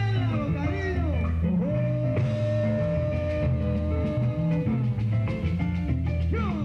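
Salsa song playing: a male voice singing over bass and band, with a long held note across the middle.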